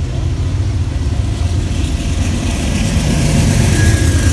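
Two Amtrak GE Genesis diesel locomotives approaching and running alongside, their engines' deep rumble growing steadily louder. A faint high steady tone joins near the end.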